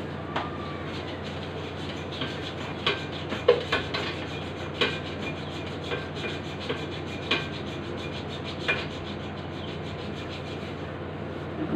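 Hand saw cutting through a block of binaluto, rasping strokes with a sharp metallic click of the blade about every second. A steady low hum runs underneath.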